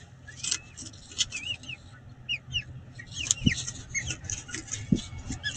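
Peregrine falcon settling onto its brood on the gravel of a nest box: scratching and rustling on the gravel, with a run of short, high chirping calls over a low steady hum.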